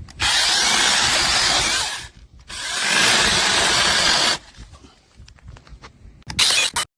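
Cordless battery-powered mini chainsaw running and cutting wood in two bursts of about two seconds each, with light clicks and rattles between them and a short final burst near the end.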